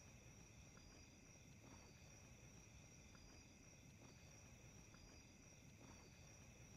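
Near silence: faint night ambience with crickets chirping steadily.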